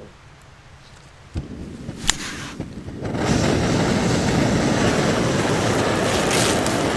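Small canister camp stove being lit: a soft gas hiss as the valve is opened, a sharp click of ignition about two seconds in, then the burner catches about three seconds in and burns with a loud, steady rushing hiss.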